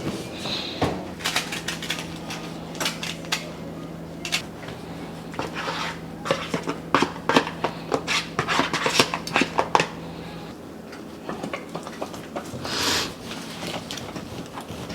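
Kitchen clatter of utensils and dishes: many short clicks and knocks, over a steady low hum that stops about ten seconds in.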